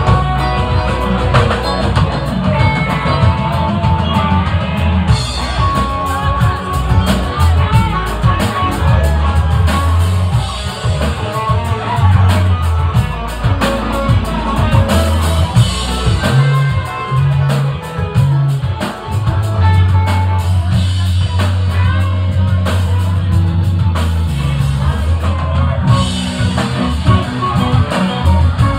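Live rock band playing, with electric guitar, a steady low bass line and a drum kit keeping time on the cymbals.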